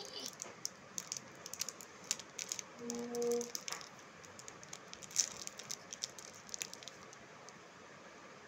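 Scattered small clicks and crackles of a child handling and eating a sweet, with a short hum about three seconds in.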